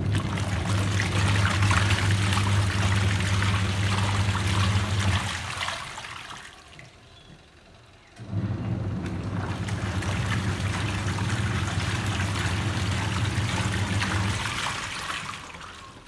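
Godrej twin-tub washing machine's wash tub agitating a sudsy load: a steady motor hum under the water sloshing and churning. The motor runs about five seconds, stops for a lull of two to three seconds, then starts again and runs until near the end, as the pulsator stops and reverses in the wash cycle.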